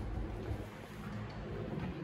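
Low, steady hum of a motor vehicle's engine, slowly fading.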